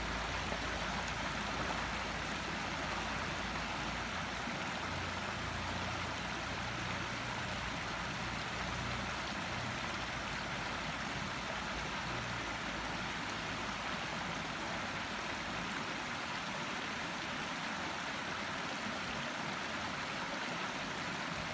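River water rushing steadily over the edge of a shallow concrete ford, with a faint low rumble that fades out about halfway through.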